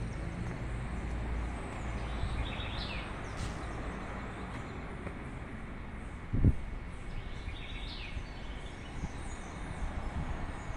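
City street traffic noise, a steady low rumble of passing vehicles, with short high chirps twice and a single low thump about six seconds in.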